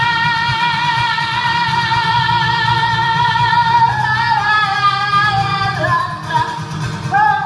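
Live song: a male singer holding one long high note for about four seconds, then moving to a second held note, over a strummed acoustic guitar.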